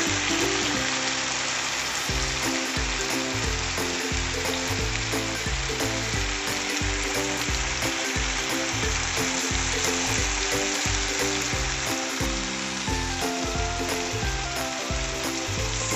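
Chicken pieces sizzling as they fry in oil in a pan, a steady dense hiss, with background music carrying a regular low beat underneath.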